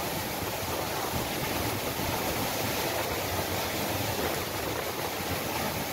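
Heavy tropical rain pouring steadily, with strong wind: a constant, even rushing noise.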